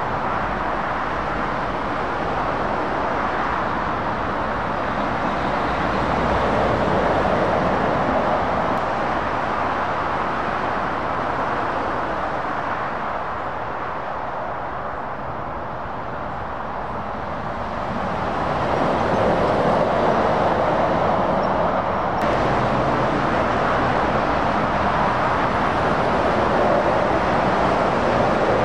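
Motorway traffic: lorries and cars going by with a steady rush of tyre and engine noise. It eases off around the middle and swells again as the next heavy trucks come closer.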